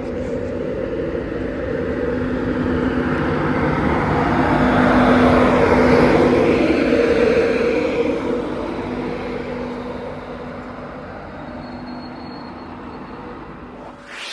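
A train passing through at speed: its rumble and hum swell to a peak about six seconds in, then fade away.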